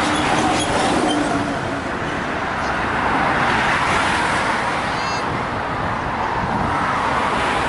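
Road traffic going by at speed: a steady rush of tyres and engines that thickens about halfway through as a vehicle passes close. No telolet horn melody stands out.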